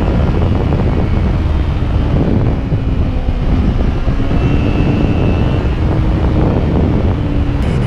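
Wind buffeting a motorcycle rider's microphone at road speed, loud and steady, with the motorcycle's engine running underneath as a faint steady hum.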